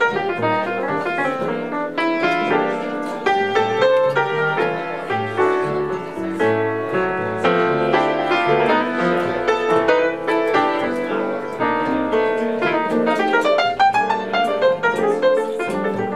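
Acoustic piano playing a busy jazz passage of chords and quick runs, with bass notes sounding low underneath.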